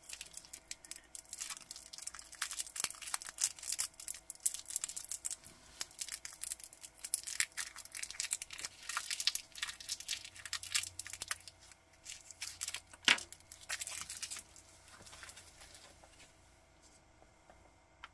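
Thin clear plastic packaging crinkling and tearing as it is worked open to free a spring bar tool and spring bars. One sharp click comes about thirteen seconds in, and the crinkling dies away near the end.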